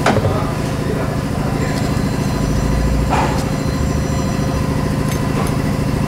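2004 GMC Envoy engine idling steadily, with a sharp click right at the start and another about three seconds in.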